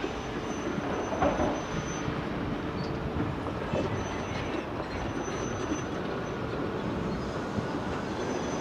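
Tipper trucks unloading fill: diesel engines running while the load slides out of a raised steel tipper body with a steady scraping rumble, louder for a moment about a second in.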